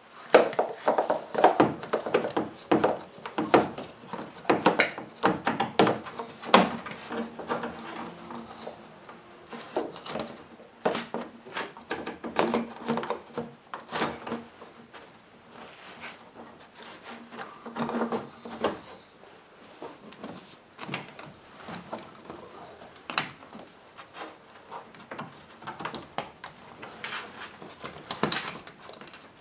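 Plastic air intake box and ducting being worked into place by hand: irregular knocks, clicks and scraping rub of plastic parts against each other.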